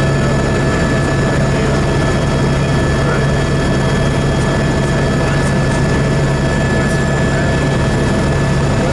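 Steady noise inside a helicopter cabin in flight: a deep constant hum from the engine and rotor with several steady higher whines over it.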